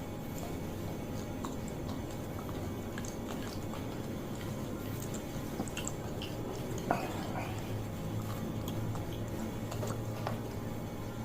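A person chewing mouthfuls of fried noodles, with scattered small wet mouth clicks over a steady low hum.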